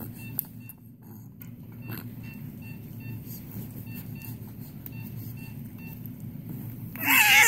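Electronic alarm beeping: a short high beep repeated about two to three times a second, with a brief pause about a second in, over a steady low hum. A loud voice breaks in near the end.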